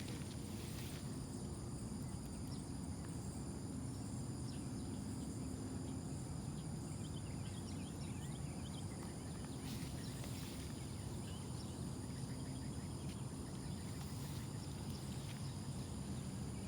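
Outdoor ambience: a steady low rumble under the steady high buzz of insects, with scattered faint chirps.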